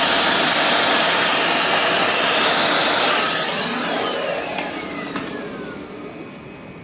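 Vacuum cleaner running steadily, then switched off about three seconds in, its motor winding down with a falling whine; a single click near the end.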